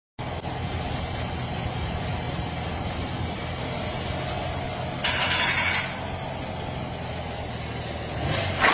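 Motorcycle engine idling steadily, with a short hiss about five seconds in and the sound swelling louder near the end. The owner asks whether the bike is making a strange noise.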